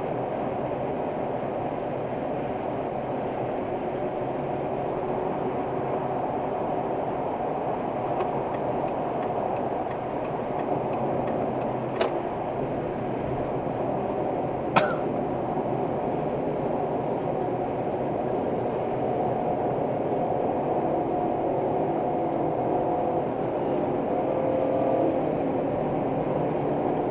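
Steady road and engine noise inside a car cruising at expressway speed, picked up by a dashcam's built-in microphone, with two short clicks about twelve and fifteen seconds in.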